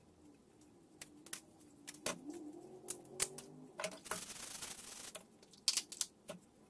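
Kitchen shears snipping and clicking on a live blue crab, a handful of sharp separate clicks. About four seconds in comes a second or so of scrubbing on the crab's shell, then a few more clicks.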